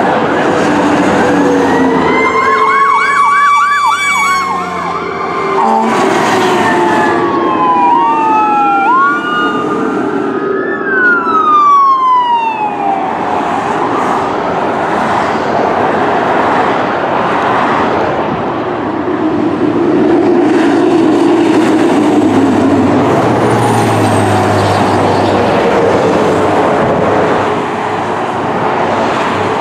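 Fire department emergency vehicle sirens passing: an electronic siren yelping with a fast warble for a few seconds, then wailing in long falling sweeps. After that comes the steady rush of highway traffic, with a low rumble of a heavy vehicle near the middle of the second half.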